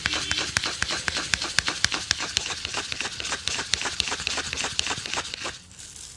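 Shoe brush stroking quickly back and forth over a leather boot, about five strokes a second, stopping about five and a half seconds in.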